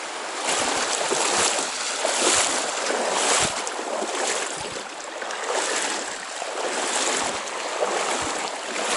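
Trout stream water rushing, a steady noisy wash that swells and eases every few seconds, with a few faint low bumps.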